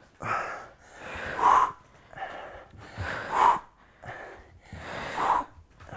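A person breathing hard with exertion during a glute-bridge exercise: about four loud, noisy breaths, roughly one every two seconds, in rhythm with raising and lowering the hips.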